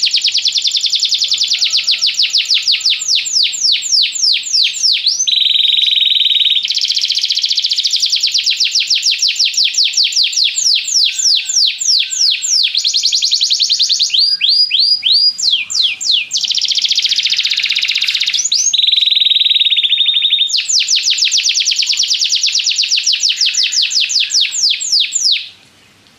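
Domestic canary singing one long unbroken song: fast trills of quick downward-sweeping notes alternating with smoother held rolls. The song cuts off suddenly near the end.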